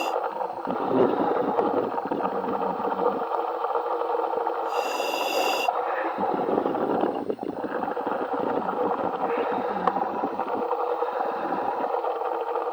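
Underwater diver's helmet audio over the surface communications line: a steady, noisy rumble with bubbling, and a brief high hiss about five seconds in. The welding power is switched off ('cold') at this point.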